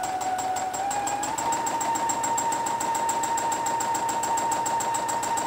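Brother computerised domestic sewing machine stitching at full speed for free-motion quilting with a jumping foot. Its motor whine rises in pitch about a second in and then holds steady over a fast, even stitch rhythm.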